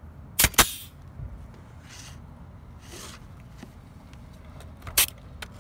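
Brad nailer firing into a cedar shake: two sharp shots close together about half a second in, and one more near the end.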